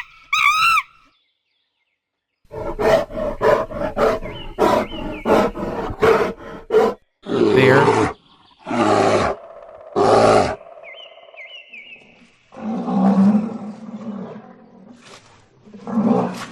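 A monkey calling in a quick run of short cries, followed after a spoken word by a bear growling: a few loud growls, then one long low growl near the end.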